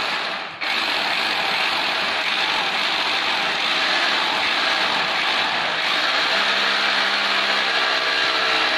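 Corded electric drill boring into the wall, running steadily at full speed, with a brief dip about half a second in.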